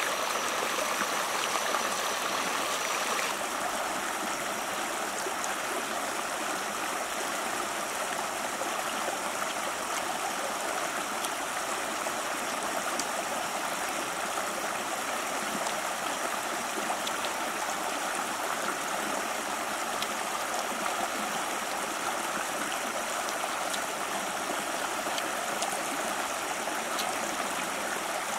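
A river running steadily over rocks in small rapids: a continuous rushing of water.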